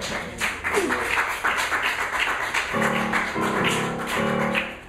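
Live free-improvised playing on electric guitars, with a quick run of scratchy, clattering attacks for the first couple of seconds. From just under three seconds in come short blocks of held pitched notes, which break off sharply near the end.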